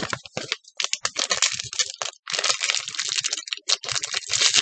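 Crinkling and crackling of a small black plastic blind bag being squeezed and worked open by hand, in irregular bursts.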